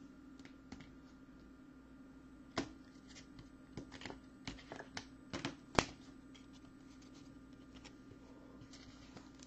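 Trading cards being handled and set down on a tabletop: scattered light taps and clicks, the sharpest about six seconds in, over a faint steady hum.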